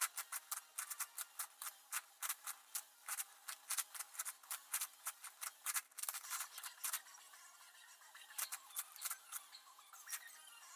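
11x11x11 plastic puzzle cube being turned fast by hand: quick clicks and clacks of the layers, several a second, thinning out and getting quieter for a few seconds past the middle.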